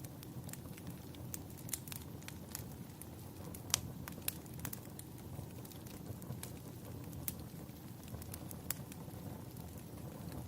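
Wood fire crackling: irregular sharp pops and snaps over a low steady rumble of burning. The loudest pop comes a little under four seconds in.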